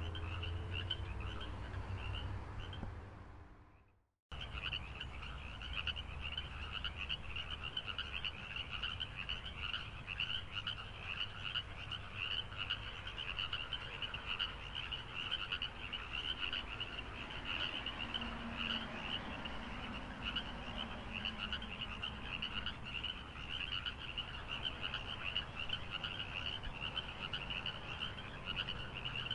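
A chorus of frogs calling, a dense fast-pulsing trill, over a low steady rumble. The sound fades out about three seconds in, goes silent for a moment, then starts again abruptly.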